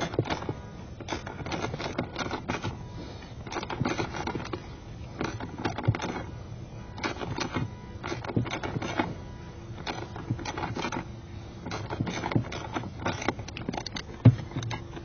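Irregular light clicks and clatter of small hard parts being handled, with no motor running.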